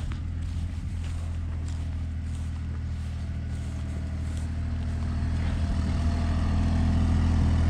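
Engine running at a steady idle, with an even low hum that holds its pitch and grows louder over the last few seconds.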